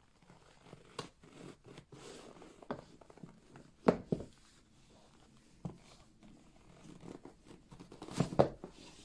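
White Puma Ralph Sampson Lo sneakers being pulled off and set down on a wooden floor: scuffing and rubbing of shoe against sock and floor, with a few dull knocks, loudest about four seconds in and again near the end.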